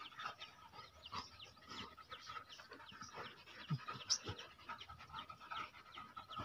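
Faint panting and sniffing of dogs: a quick run of short, soft breaths.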